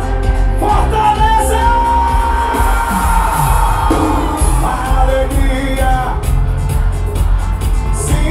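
Live forró band playing through a concert sound system: amplified singing over a steady heavy bass beat, with the crowd shouting along.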